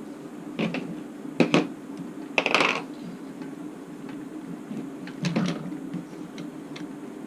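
Short hard clicks and clatters of small hand tools and plastic and metal RC helicopter tail parts being handled, loudest about one and a half and two and a half seconds in, over a steady low hum.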